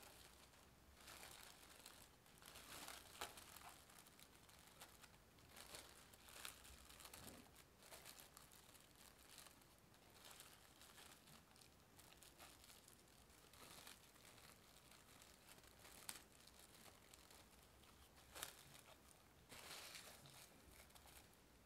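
Plastic cling wrap crinkling as hands press it onto batter in a glass bowl and smooth it around the rim: quiet, irregular rustles with a few sharper crackles.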